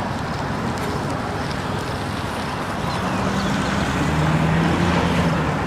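Steady vehicle and road noise, with a low engine hum that comes in about three seconds in as the noise grows a little louder.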